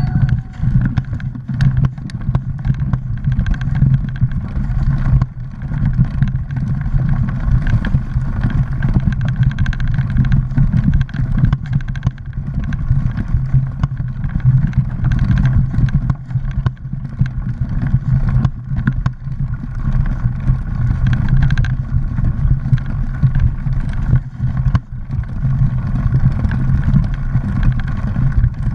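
Mountain bike rolling along a dirt forest trail, picked up by a GoPro action camera riding with it: a steady low rumble of tyres and wind, broken by frequent short knocks and rattles over bumps in the trail.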